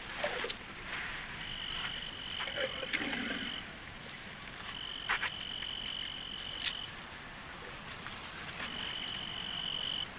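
A night-calling animal's steady high trill, about two seconds long, repeats three times. Rustling, scraping and a few sharp knocks run under it as an elephant's trunk brushes and bumps against the camera.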